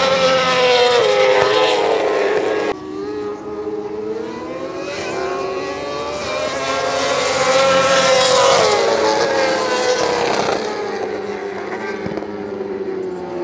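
World Superbike racing motorcycles at speed on the circuit, the engines' high note rising and falling in pitch as the bikes pass. It is loudest about a second in and again around eight seconds, with an abrupt break about three seconds in.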